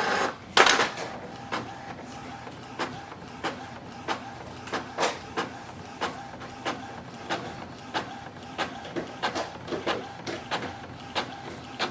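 Epson EcoTank inkjet printer printing a test copy after a power cleaning of its clogged printhead. A steady mechanical whir is broken by short, regular ticks about every two thirds of a second as the print head carriage sweeps back and forth, with a louder burst of feed noise about a second in.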